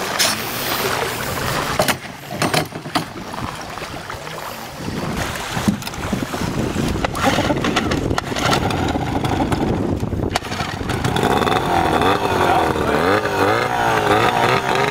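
Small Yamaha two-stroke tiller outboard running out of the water, with knocks and clatter as it is handled and mounted in the first half. From about eleven seconds in it is revved up and down several times on the tiller throttle.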